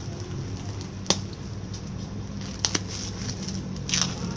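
Plastic film wrapped around a parcel crinkling as it is handled, with a few sharp ticks about a second in and again near three seconds, and a louder crackle near the end. A steady low hum runs underneath.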